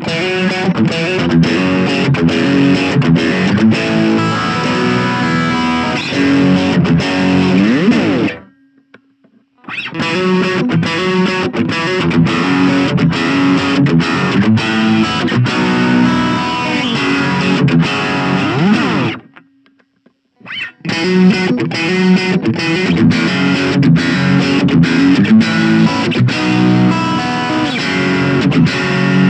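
Suhr Classic Pro electric guitar played through a Blackstar Fly 3 mini amp's overdrive channel: a distorted riff played three times, with short breaks about 8 and 19 seconds in. The first two phrases each end with a rising slide.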